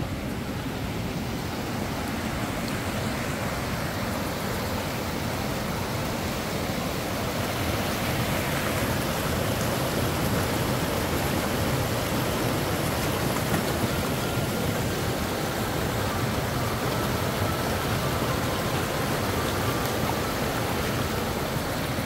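Waterfall rushing in a steady roar of falling water, growing louder over the first several seconds.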